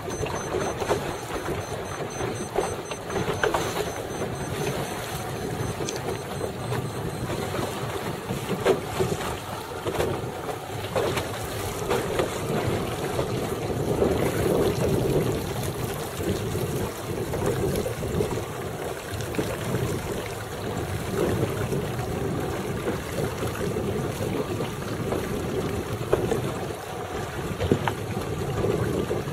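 Steady wind rushing over the microphone, with choppy open water lapping and splashing.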